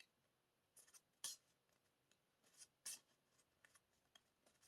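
Near silence broken by a few faint, brief rustles of paper being handled, the clearest about a second in and near three seconds in.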